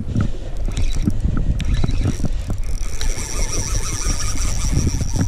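Shimano Sedona C5000 spinning reel being cranked under the load of a hooked fish: the reel's gears whir steadily, and a higher whine joins in from about three seconds in, over a low rumble.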